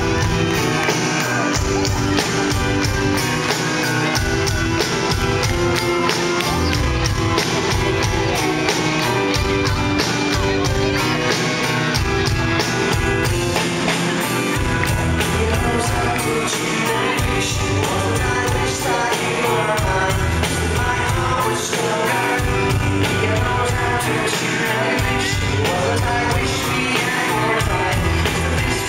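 Live rock band playing through a concert PA, heard from the crowd: drums, electric guitar and a man singing over a steady beat, loud and continuous.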